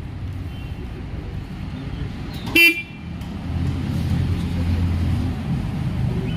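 Yezdi Roadster motorcycle horn giving one short toot about two and a half seconds in, over a steady low rumble that grows louder a second later.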